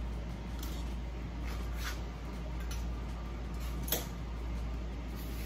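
A few faint clicks and one sharper metal-on-glass clink about four seconds in as a canning lid and screw band are handled and set on a filled glass jar, over a steady low hum.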